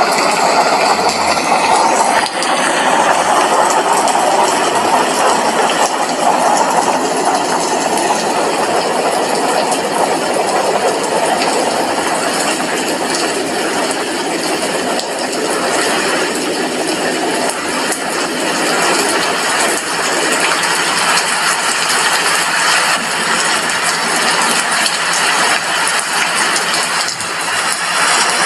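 Steady heavy rain, water drops pattering on a glass window in a continuous even hiss.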